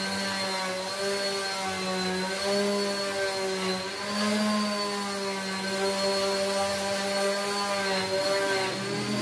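Handheld electric random orbital sander running against the willow blade of a cricket bat, a steady motor whine whose pitch wavers slightly as the work goes on.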